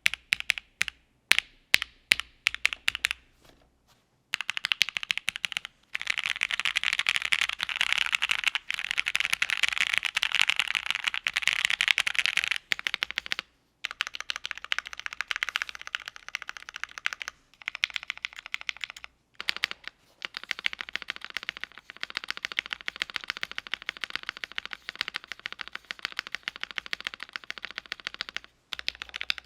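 Mechanical keyboard typing on Gateron Oil King linear switches, in a WIND X board with a polycarbonate plate and GMK keycaps. A few separate keystrokes come first, then after a short pause fast, continuous typing with brief breaks.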